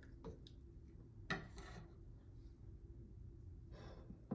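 Metal ladle handling a piece of boiled hen between a stainless steel stockpot and a ceramic bowl: a knock about a second in followed by a short scrape, another scrape near the end and a sharp click, over a low steady hum.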